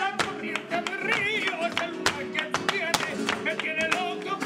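Flamenco-style music with plucked guitar, a wavering melody line and frequent sharp percussive strikes.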